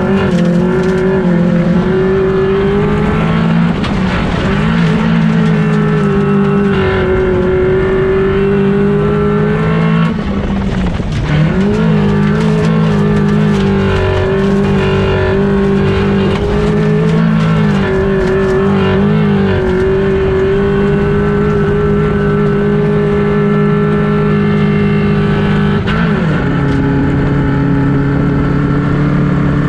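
Small-displacement autocross race car engine (N1400 class, up to 1400 cc) running hard at high revs, heard loud from inside the cabin. Its note drops briefly a few times and then picks up again, and near the end it glides down and settles to a lower steady note.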